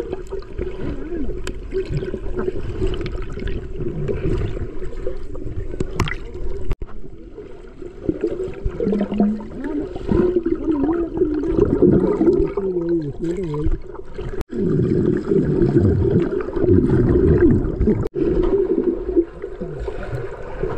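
Running water, steady and continuous, cut off briefly by a few sudden dropouts.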